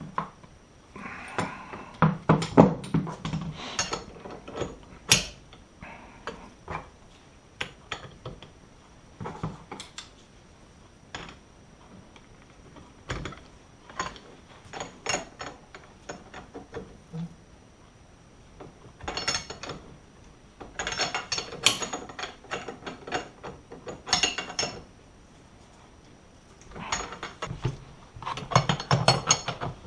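Hand tools and steel coilover parts clinking and clicking intermittently, with several bursts of rapid ratchet-wrench clicking, the densest in the second half.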